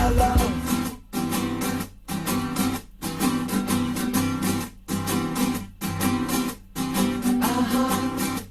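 Background music: guitar chords strummed in a steady rhythm, with short breaks about once a second.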